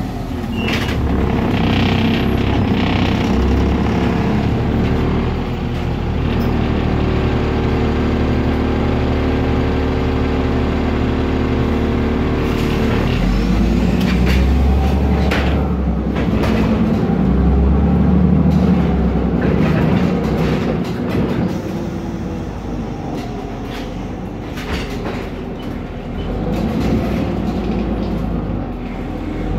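Cummins ISB Euro 5 turbo diesel of a BMC Procity city bus, heard from inside the passenger cabin while the bus drives. The engine note holds steady for several seconds, then rises and falls in pitch about halfway through and again a few seconds later, with interior parts rattling and clicking.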